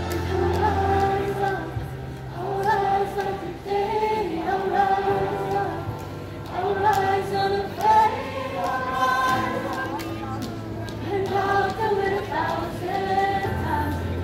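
Large youth choir singing in parts, in phrases with short breaks between them, with low held bass notes underneath at times.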